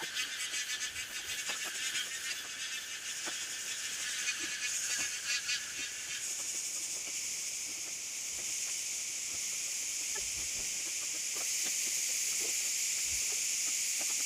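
A high-pitched hiss that flutters rapidly for the first several seconds, then runs steady and cuts off suddenly at the end.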